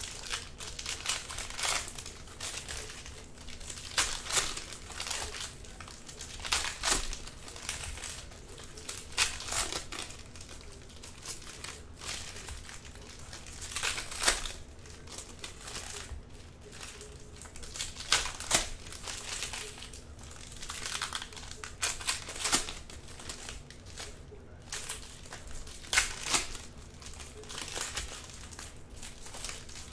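Foil wrappers of Panini Prizm retail trading-card packs crinkling as packs are opened and handled, in irregular sharp crackles every second or two.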